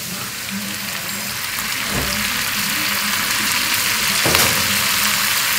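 Spinach stems frying in butter in a pan, a steady sizzle that grows louder as a strainerful of fresh spinach leaves is tipped in. There are two soft thuds, about two and four seconds in.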